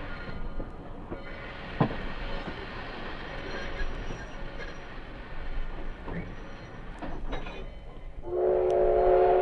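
American steam locomotive running, followed about eight seconds in by its steam whistle sounding a loud, steady chord of several notes. A single sharp knock comes about two seconds in.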